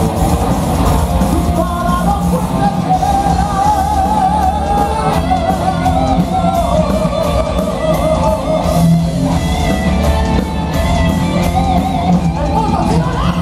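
Heavy metal band playing live through a large PA: distorted electric guitars, bass guitar and drums, with a high melody line wavering with vibrato over them.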